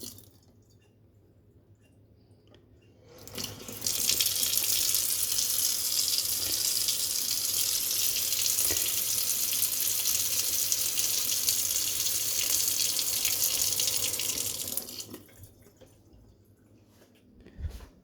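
Water faucet running at a strong flow into a sink for about eleven seconds, starting a few seconds in and then shut off. A single low thump follows near the end.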